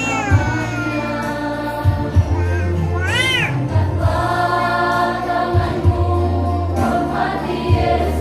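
Mixed choir of young men and women singing a Christian hymn over sustained bass notes. About three seconds in, a brief high sound glides up and back down.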